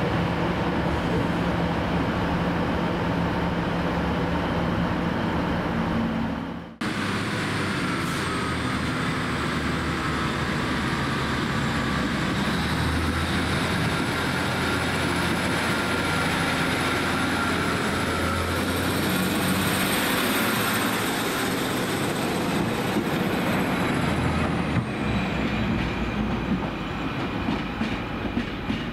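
Northern class 156 diesel multiple unit pulling away: its Cummins diesel engines running under power, with a high whine that rises in steps and falls away near the end. For the first seven seconds a different steady hum, from the end of the previous scene, runs and then cuts off abruptly.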